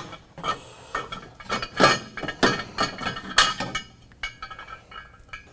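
Stock exhaust of a Can-Am Maverick 1000 being pulled out by hand, its metal pipe and catalytic converter clinking and knocking against the chassis frame. It makes a string of irregular sharp metallic clinks that thin out after about four seconds.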